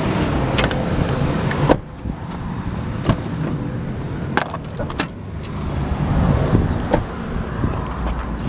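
A Toyota sedan's door and trunk lid being handled: a string of sharp clicks and clunks, one louder clunk a little under two seconds in, with keys jangling, over a low rumble.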